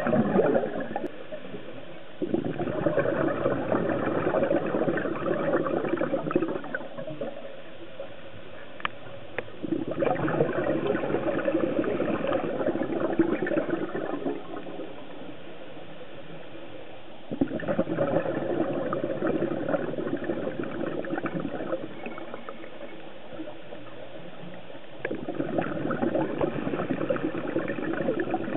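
Scuba diver's regulator breathing underwater: four bursts of exhaled bubbles, each lasting about four seconds and coming roughly every seven to eight seconds, with quieter pauses between them while the diver inhales.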